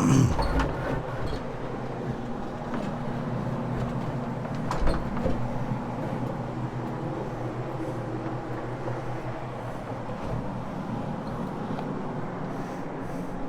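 Rotary floor machine running steadily with its cleaning pad scrubbing carpet: a steady motor hum, with a thump at the very start and another about five seconds in.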